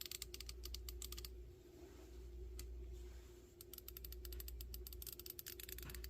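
Icon G2 1/4-inch ratchet freewheeling under light back drag, its pawl giving rapid, quiet fine clicks. A run of clicks for about a second, a pause of about two seconds with a single click, then another run.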